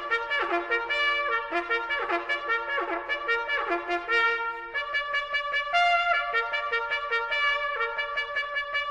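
A trumpet playing a lively tune: quick repeated runs of notes, then longer held notes from about halfway through.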